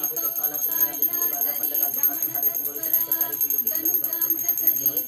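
Devotional music with jingling bells keeping a fast, even beat under the melody.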